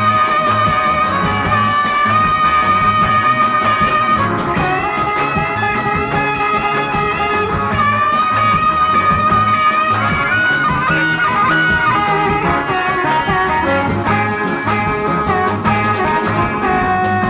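Electric blues band recording playing an instrumental passage with no vocals: long held lead notes that bend in pitch, over a steady bass and drum beat.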